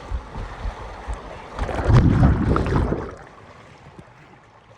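Rushing water and wind buffeting the microphone during a water-slide ride, swelling to a loud rush about two seconds in, then dropping away to a quieter wash after about three seconds.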